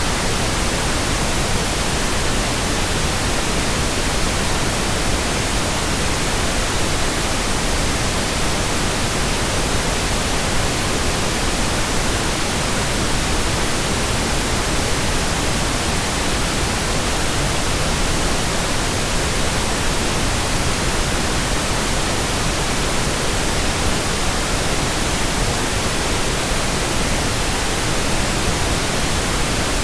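Steady white noise: an even, unchanging hiss across all pitches, played as a sleep sound for babies.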